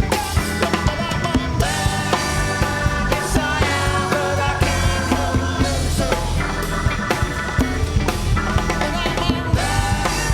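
Rock music with drums and a singing voice.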